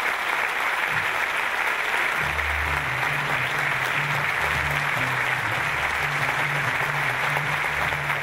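A large audience applauding steadily in a hall. About two seconds in, background music with a low, rhythmic bass line starts under the clapping.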